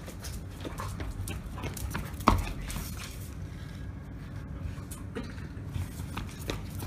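Footsteps of a man and a large dog's paws scuffing and clicking on a concrete floor, a run of short irregular taps, with one sharp knock about two seconds in.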